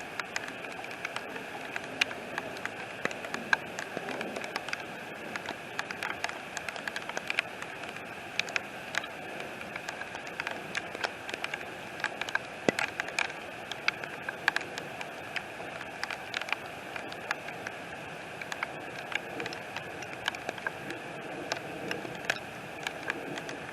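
Heavy rain falling steadily, with many irregular sharp ticks of drops striking close by.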